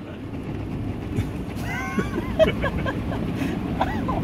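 Automatic car wash equipment working over the vehicle, heard from inside the cabin: a rushing, rumbling wash that grows louder, with a few short squeaks and knocks around the middle.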